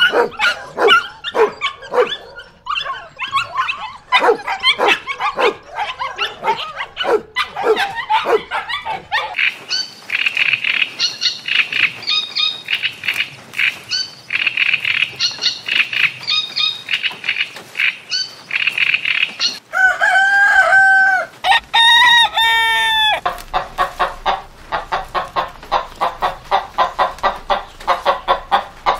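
A run of animal calls: puppies yipping and whining for about the first nine seconds, then a stretch of high, short bird calls. About twenty seconds in a rooster crows, and after that hens cluck in quick, evenly repeated short calls.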